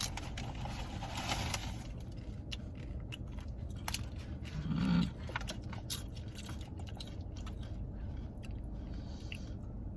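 Close-miked eating sounds: a person chewing a burrito bowl, with scattered crunches and mouth clicks and a brief hum about five seconds in.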